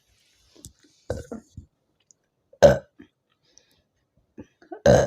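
A woman burping from a belly full of fizzy soft drink: a few small sounds about a second in, then two loud burps, one midway and a longer one near the end.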